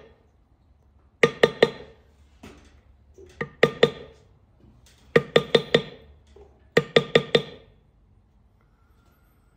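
Mallet tapping a metal leather-tooling stamp into thick saddle leather, in quick groups of three or four sharp, ringing taps about every second and a half.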